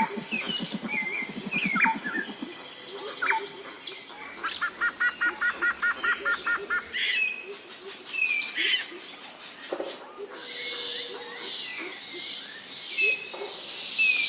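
Several birds chirping and whistling, with a run of about ten quick repeated notes near the middle over a faint steady high tone.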